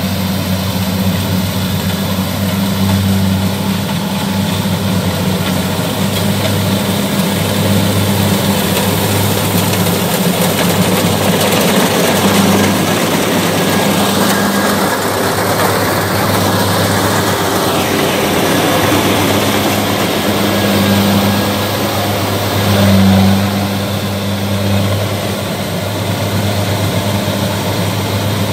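Kubota DC70 rice combine harvester at work: its diesel engine runs steadily under load, a constant hum with a dense mechanical rush from the cutting and threshing gear over it.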